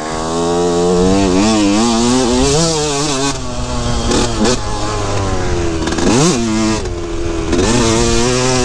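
2003 Yamaha YZ125's single-cylinder two-stroke engine revving up and down while being ridden hard. About six seconds in, the throttle is briefly chopped and snapped back open, so the pitch dips sharply and climbs again.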